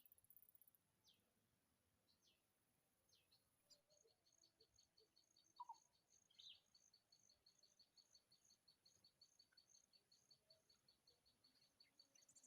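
Faint high bird chirps: a few short downward-sliding notes, then from about four seconds in a fast, even run of high ticking notes.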